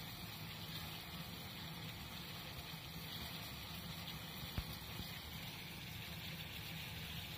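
Water boiling hard in a small metal saucepan on a gas stove: a steady bubbling rush, with one sharp tick about four and a half seconds in.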